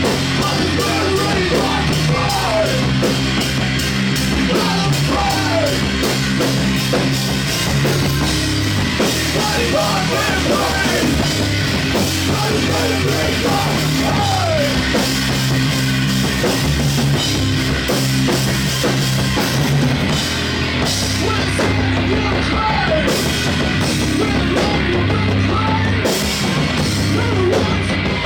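Rock band playing loud, heavy post-hardcore with a driving drum kit, bass and distorted guitars.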